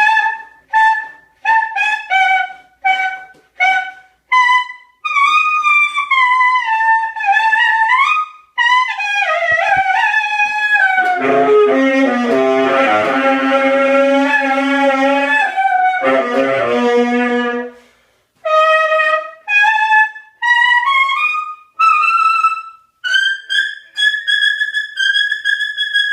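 Solo saxophone improvising free jazz: a run of short separate notes, then long notes bending in pitch, a rough, buzzy passage with a low note beneath it in the middle, a short break, and a long held high note near the end.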